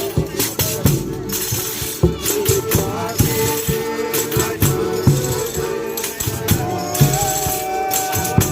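Folia de Reis music: tambourines and rattles keeping a steady beat under sung voices, with a long held note coming in near the end.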